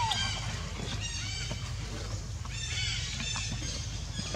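High-pitched animal squeaks or chirps in several short runs, over a steady low hum.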